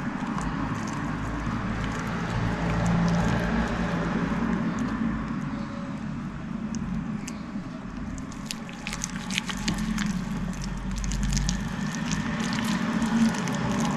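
Soft slime being squished and worked by hand, with a scatter of small sticky clicks and pops that thicken in the second half.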